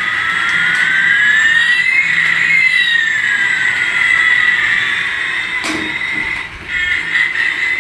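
Electronic toy sound effect: a held high tone with sweeping pitches, one rising and one falling, that cross a little over two seconds in. A sharp click comes near the six-second mark.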